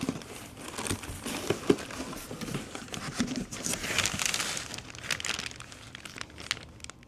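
Packaging crinkling and rustling as it is handled, with scattered light knocks; the crinkling is thickest about four seconds in.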